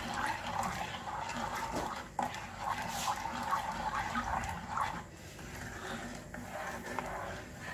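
Plastic spoon stirring sugar and water in a nonstick frying pan, scraping the pan bottom and swishing the liquid, with short squeaky sounds, busiest between about two and five seconds in. The sugar is being stirred so it dissolves without sticking to the pan.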